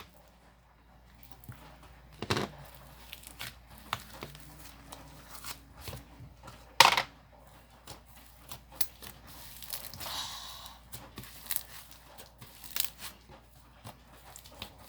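Plastic slime packaging being handled: crinkling and tearing with scattered sharp clicks, and two louder snaps about two and seven seconds in.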